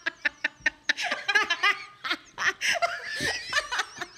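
Women laughing hard, in quick repeated breathy pulses, breaking into high wavering squeals about a second in.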